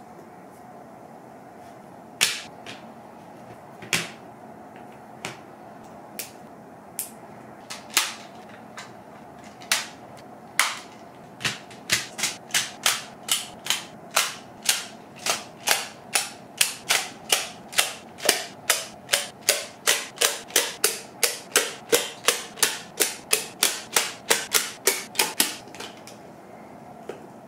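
Plastic magnetic building tiles clicking sharply as they snap together: a few scattered clicks at first, then a quick run of about three a second from about halfway through, stopping shortly before the end.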